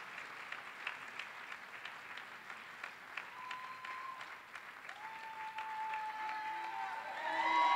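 Audience applauding, a dense patter of many hands clapping, with a few drawn-out cheers from the crowd rising over the clapping in the last seconds.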